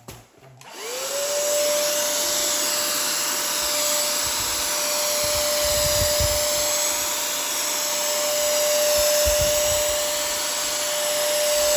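A DEKO cordless paint sprayer's turbine runs with a steady whine and a rush of air while spraying a test coat of water-thinned paint to set the spray pattern. It spins up about a second in and winds down at the end.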